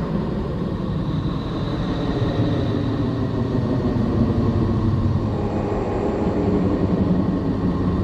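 Sonification of Neptune: spacecraft radio and plasma-wave data turned into sound, heard as a steady, dense low rumble with a faint hiss above it.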